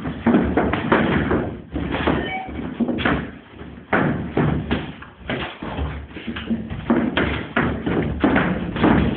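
Gloved strikes landing during sparring: an irregular run of thumps, about two or three a second.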